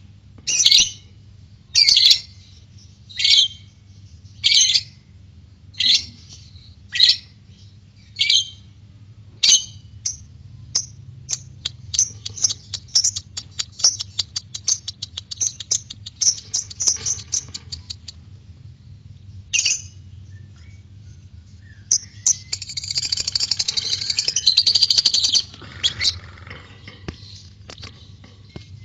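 Lovebird calling: sharp, high calls about once a second for the first ten seconds, then a fast run of short chirps. Near the end comes a dense burst of chattering about three seconds long, the 'ngekek' song.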